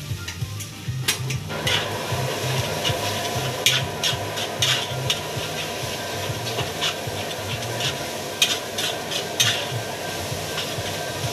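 Rice stir-fried in a steel wok: a metal spatula scrapes and clanks against the wok over and over, with sizzling that comes in about a second and a half in.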